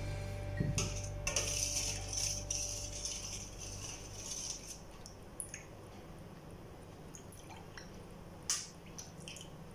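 Metal spoon stirring and scraping through milk in a stainless steel bowl for about four seconds, then a few sharp clinks as it spoons the milk into glass cups, the loudest about 8.5 seconds in.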